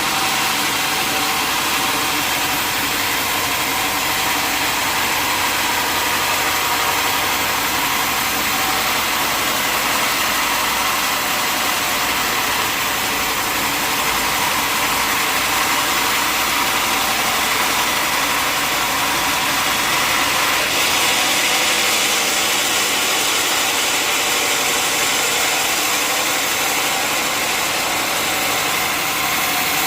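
Sawmill machinery running steadily: a continuous, even mechanical noise with no pauses.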